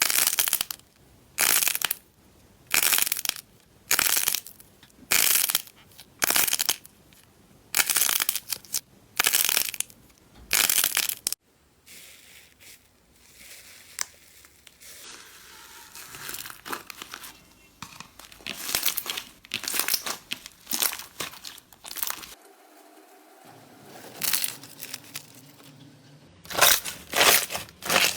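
Slime being squeezed and pressed by hand, crackling and crinkling: loud crunches about once a second, then softer, irregular crinkly handling, and a quick run of loud crunches again near the end.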